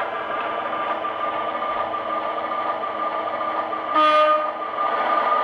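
Sound-equipped HO scale model diesel locomotive playing its engine sound through its small onboard speaker, a steady drone. About four seconds in it gives a short horn blast, and another horn blast starts right at the end.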